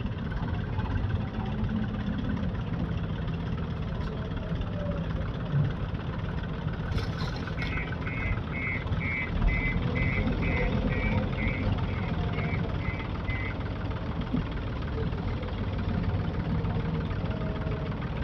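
Diesel engine of a JCB backhoe loader running steadily, with its reversing alarm beeping about two and a half times a second for roughly six seconds midway, the sign that the machine is backing up.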